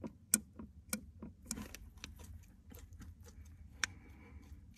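MTZ-80 tractor's clutch release bearing turned by hand, giving irregular sharp clicks, several a second at first, then fewer, with one louder click near the end. The owner says this bearing had been squealing and binding, and greasing only quietened it for a while.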